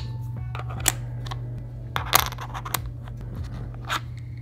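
Flat plastic puzzle pieces clicking and tapping as they are set into a small plastic tray and pushed against each other: about five sharp clicks, roughly a second apart.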